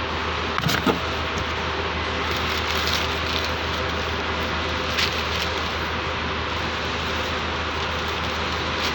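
2014 Ford Taurus V6 engine idling steadily, with a few light clicks and rattles about a second in and again near the middle.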